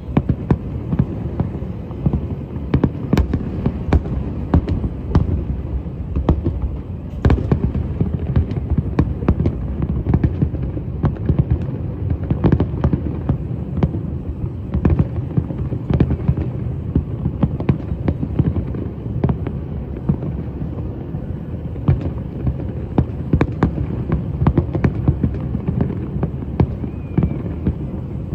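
Fireworks display with a continuous low rumble of bursts and many sharp cracks in quick succession.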